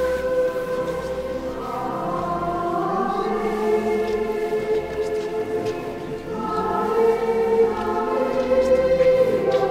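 Voices singing a slow communion hymn together, holding long notes that change pitch every second or two.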